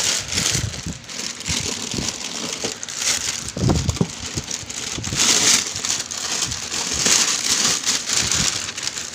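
Plastic wrapping sheet rustling and crinkling in swells as it is pulled and handled, with cardboard box flaps rubbing and a few dull knocks, the loudest about four seconds in.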